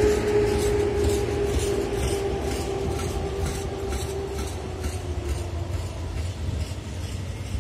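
Container flat wagons of a freight train rolling past, wheels clicking over rail joints in a regular rhythm over a low rumble. A steady hum sinks slightly and fades out about two thirds of the way through.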